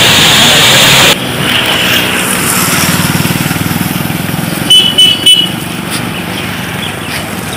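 A loud rushing noise cuts off suddenly about a second in, giving way to a motor vehicle engine running. Three short high beeps sound in quick succession about five seconds in.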